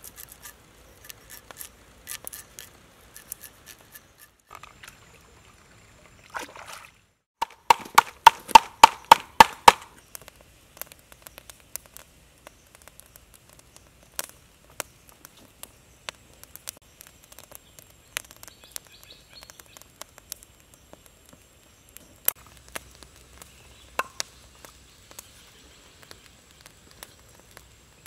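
Food preparation with a knife: scattered light knife clicks and scrapes, with a quick run of about ten sharp chopping knocks, about four a second, a third of the way in, the loudest sounds. A faint steady high tone runs underneath from early on.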